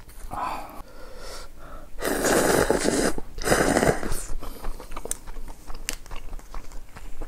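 A person eating close to the microphone: small mouth clicks, then two loud airy slurps, a long one about two seconds in and a shorter one just after, typical of slurping spicy noodles.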